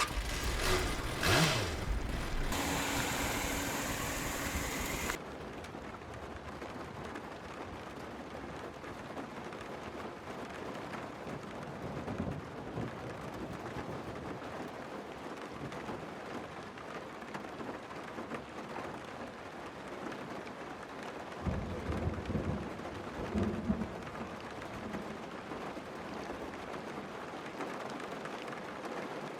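Steady heavy rain with thunder: a loud rumble and crash in the first few seconds that cuts off suddenly, then rain hissing evenly, with another low rumble of thunder about three quarters of the way through.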